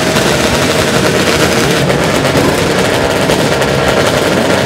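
Several 250cc and 350cc two-stroke racing motorcycles running together with a rapid, staccato exhaust note, loud and steady and very noisy.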